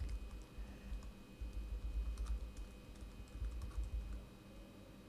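Keystrokes on a Lenovo ThinkPad T460s laptop keyboard: a run of light, irregular key clicks as a command is typed.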